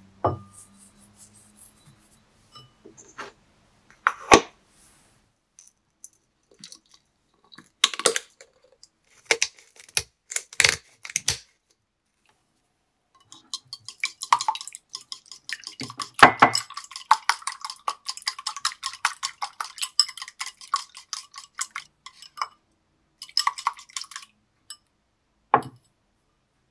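Kitchen sounds of seasoning and beating two raw eggs in a ceramic bowl: scattered taps and clinks at first, then a long stretch of rapid clicking and clinking from a pepper grinder and a wire whisk.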